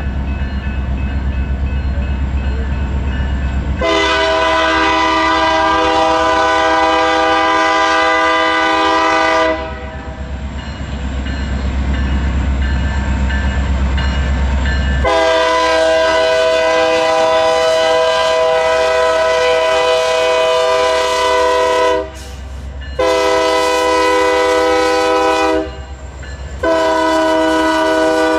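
Norfolk Southern diesel locomotives sounding their multi-note air horn in the grade-crossing pattern of long, long, short, long, with the last long blast running on at the end. Under it runs a steady low locomotive rumble.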